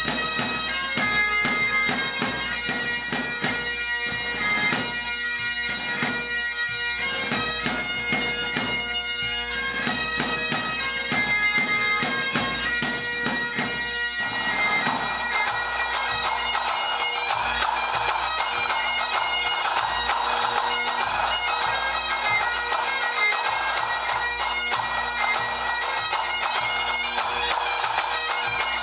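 Highland pipe band playing: a bagpipe melody over a steady drone. About halfway through the sound fills out into a denser, thicker texture.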